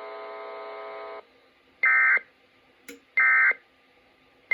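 A steady buzzing tone cuts off about a second in, followed by two short, loud bursts of EAS end-of-message data tones, the screechy digital code that closes an emergency alert, about a second and a half apart.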